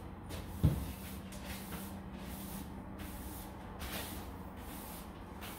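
Household handling noise as someone moves about a room: a single thump about a second in, then soft rustling and shuffling with a faint steady hum.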